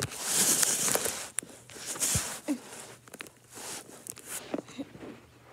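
Rustling and scuffing of clothing on carpet, with a few small knocks, as a child gets down onto the floor next to the phone. The rustling is loudest for about the first second, then goes on as quieter shuffles.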